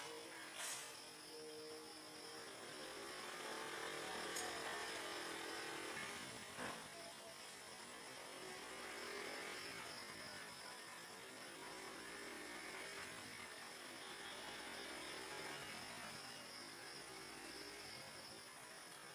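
Faint steady background hiss and hum with a thin, high, steady tone, broken by a few soft clicks in the first seven seconds.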